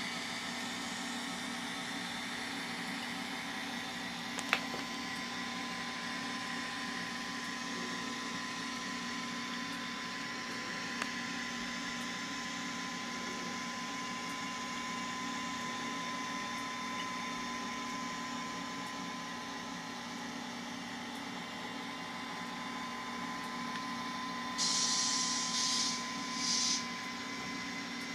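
N scale model diesel locomotive's DCC sound decoder playing a steady engine running sound through its small speaker, with a thin high whine through the middle and two or three bursts of air hiss near the end. A sharp click about four seconds in.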